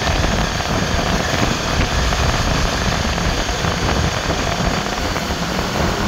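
Steady rumbling wind noise buffeting the microphone, with the engine and tyre noise of a vehicle moving along the road.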